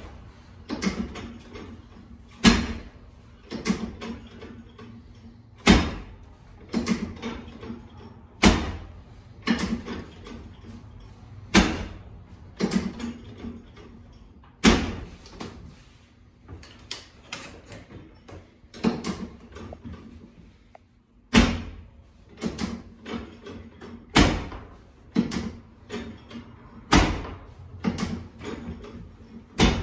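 Chiropractic adjusting equipment clacking through a session of treatment: a loud sharp clack about every three seconds, each run preceded by a few lighter clicks, over a faint steady hum.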